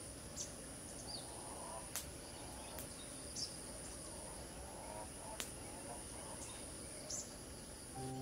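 Outdoor ambience: a steady high-pitched insect drone with short bird chirps scattered through it, and a couple of sharp clicks.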